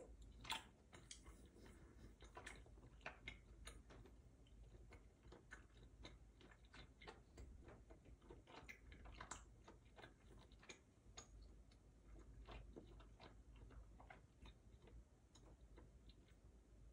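Faint, irregular small clicks and ticks, a few a second, over a low room hum.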